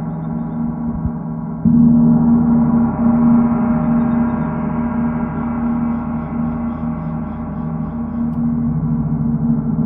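Gong ringing with a dense, sustained wash of many tones, struck again about a second and a half in so the level jumps, then swelling and ebbing as it is kept sounding.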